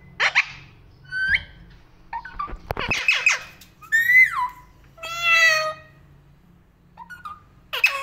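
Alexandrine parakeet giving a run of about six loud, harsh calls and chatter, one sliding down in pitch about four seconds in.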